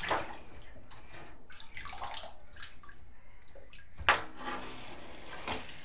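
Bathwater splashing and sloshing in a bathtub as a small child moves about in it, with one sharper hit about four seconds in.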